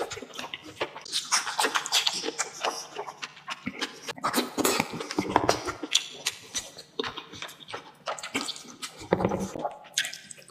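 Close-miked eating: a person chewing and smacking on braised meat and rice, many quick wet smacks and clicks of lips and mouth.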